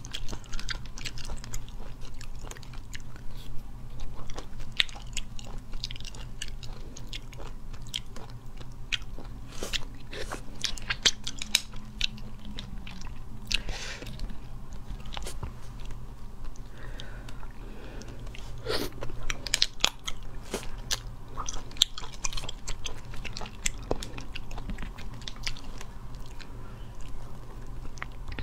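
Close-miked eating of small spicy sea snails: shells clicking as they are handled and picked with a toothpick, and chewing, heard as a steady scatter of small sharp clicks.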